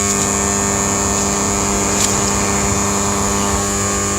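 Rewound microwave oven transformer buzzing with a steady, loud mains hum while its secondary is dead-shorted through a steel spanner, heating it under heavy current. A faint crack about two seconds in.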